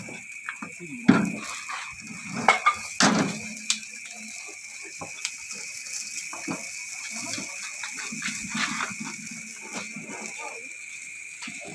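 Metal barbecue tongs clicking and scraping against the wire grill grate while turning chicken wings on a charcoal grill: irregular sharp clicks, the loudest about a second in and about three seconds in.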